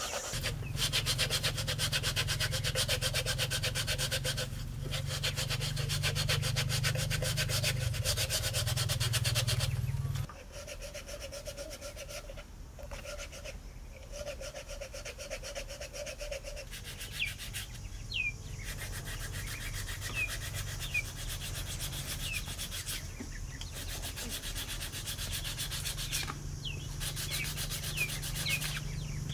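Bamboo being sanded: a continuous fast rubbing, heavier with a low hum for about the first ten seconds and again near the end. Small birds chirp several times in the second half.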